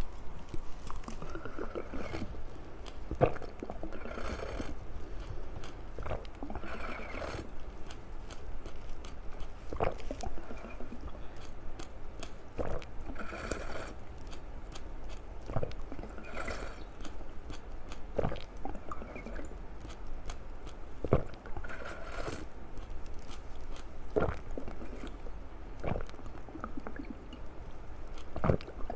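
Candy being crunched and chewed close to the microphone, with sharp clicks and short crackles every second or two.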